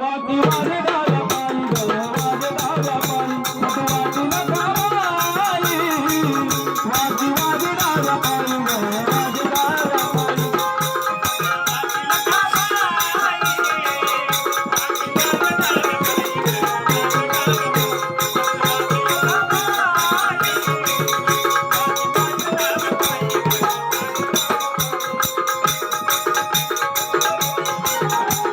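Instrumental interlude of a Marathi devotional folk song: a wavering melody line over fast, steady hand-drum and rattle percussion.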